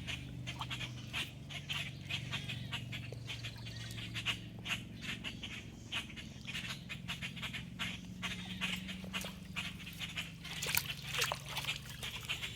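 Grackles calling with many short, harsh chips and squawks in quick irregular succession, over a low steady hum.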